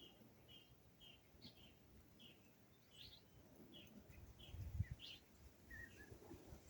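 Small birds chirping: a short chirp repeated about twice a second, with a few quick downward-sliding notes mixed in. A brief low thump about three-quarters of the way through.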